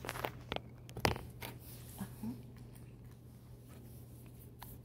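Close handling noise: a few scattered sharp clicks and taps as small objects are handled, the loudest about a second in, over a steady low hum.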